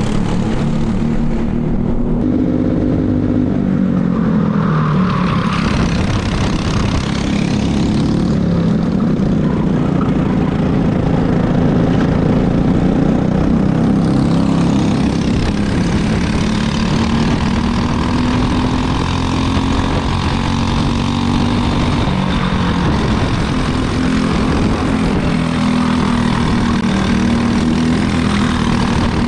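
Briggs & Stratton LO206 single-cylinder four-stroke kart engines racing, the engine note rising and falling in pitch as the karts accelerate and slow for corners. About halfway through, one kart's engine is heard close up along with a steady hiss of wind and tyre noise.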